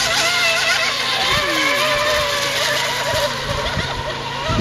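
Radio-controlled mini hydroplane racing boat running at speed, its motor a high whine whose pitch wavers up and down as the throttle changes.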